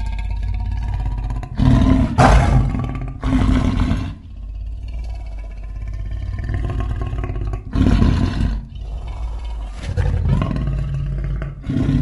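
Composite werelion roar sound effect layered from lion and other big-cat recordings: a continuous low growl broken by about five louder roars.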